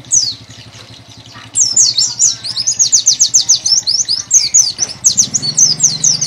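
Caged pleci dakun (white-eye) singing hard: one high down-slurred note at the start, then from about a second and a half in a fast, unbroken string of high sweeping notes, several a second.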